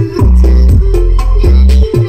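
Loud music played through a truck-mounted sound system of ten subwoofers during a sound check. Heavy sustained bass notes, each starting with a falling pitch, come in a steady rhythm with percussion over them.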